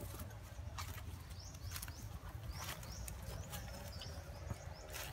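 Scattered short, high chirping calls, about five of them with small pitch glides, over a steady low rumble.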